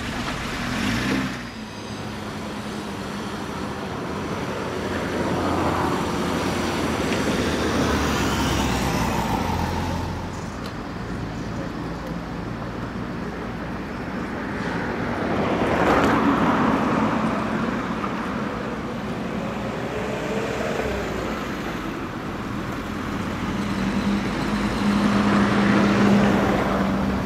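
Road traffic on a town street: cars passing one after another, with three louder passes that swell and fade over a continuous engine and tyre hum.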